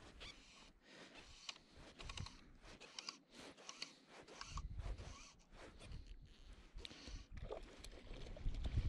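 Fly line being stripped in by hand through the rod guides, a string of short, irregular rasping pulls. Wind buffets the microphone from about halfway through, strongest near the end.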